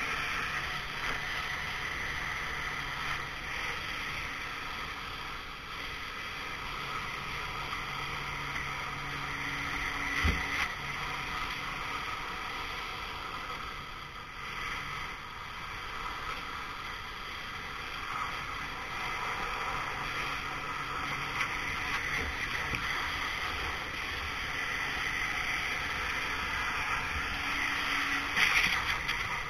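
Pressure washer's high-pressure water jet hissing steadily as it blasts a plastic bottle and the concrete beneath it. There is a sharp knock about ten seconds in. The spray swells briefly louder near the end.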